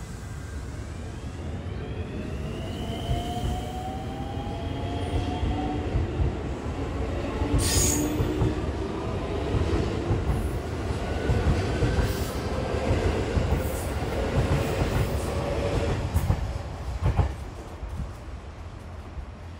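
JR West 223-series electric train pulling out of the station: the traction motors' whine rises in pitch as it picks up speed, then the wheels clatter over the rail joints. There is a brief high squeal about eight seconds in, and the sound fades near the end as the last car clears the platform.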